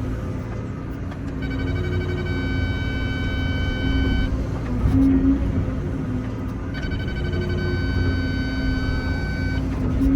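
Excavator's diesel engine and hydraulics running steadily under load while digging. A high steady whine sounds twice, about three seconds each time.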